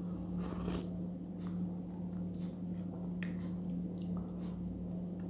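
Faint mouth sounds and a few small clicks of someone tasting a milkshake off a spoon, over a steady low electrical hum.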